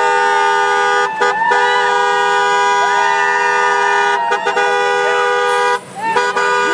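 Several car horns held down together in a long steady blare, each cutting out briefly about a second in, again around four seconds in, and near the end, with voices calling over them.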